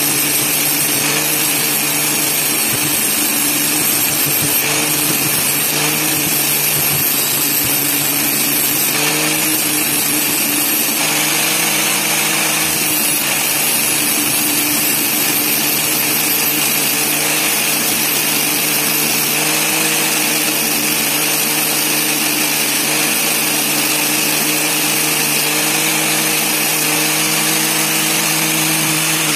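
A grinder spinning an old tile-cutting disc, running steadily at constant speed with a continuous grinding hiss over the motor hum as it sharpens the teeth of a bandsaw blade.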